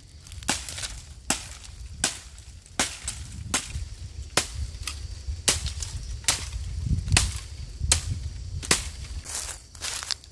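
Footsteps snapping dry twigs and brush underfoot at a steady walking pace, a sharp crack about every three-quarters of a second, over a low rumble of wind on the microphone.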